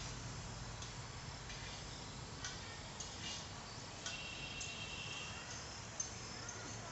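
Faint outdoor ambience over open fields, with scattered short, high chirps and a few rising-and-falling calls from small animals.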